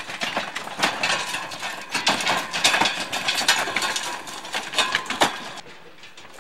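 Wooden handcart with spoked wheels clattering and rattling over a rocky trail as it is pulled past, with feet scuffing on the stones. The irregular knocking is loudest midway and dies down near the end as the cart moves off.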